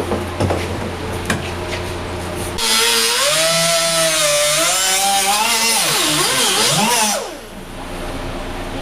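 A handheld power tool runs for about four and a half seconds, its motor whine wavering up and down in pitch with trigger and load, during the tear-down of a damaged truck body. Before it, a steady shop hum with a few sharp clicks.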